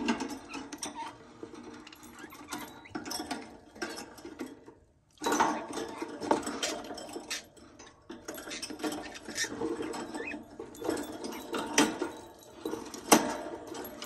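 Irregular scratching, rustling and clicking on the wood of a budgie nest box as it is handled, with a brief pause a little before the middle and a sharp knock near the end.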